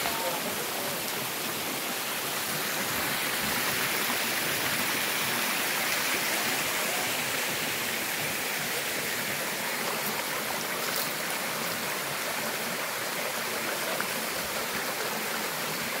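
Steady rush of running water from a creek.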